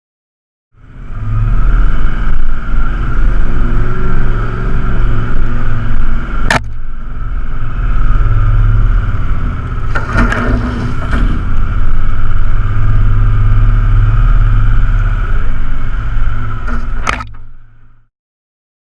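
Four-wheel drive's engine running loudly as the vehicle drives, heard in clips joined by two abrupt cuts.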